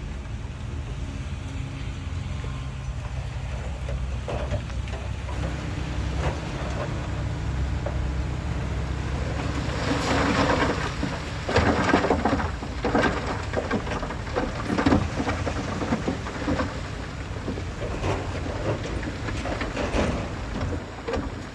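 Heavy diesel earthmoving engine running steadily, joined about ten seconds in by rough, irregular crunching and rattling of stone and soil being moved.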